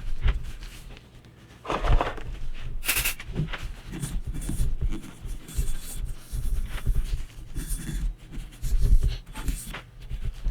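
Irregular scrubbing, rubbing and handling noises with scattered low bumps as the slide of a 1911 pistol is cleaned by hand with a swab.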